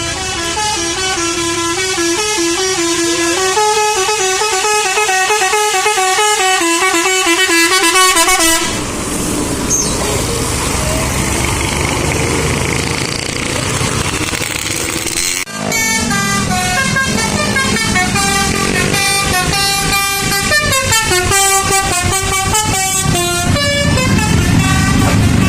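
Bus telolet horn playing a stepping multi-note tune for about eight seconds, followed by a stretch of steady engine and road noise. After a sudden break, the telolet horn plays its tune again until near the end.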